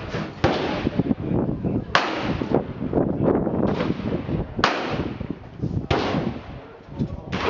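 Shotgun shots at a clay-target range: four blasts spaced one to three seconds apart, each trailing off in a long echo.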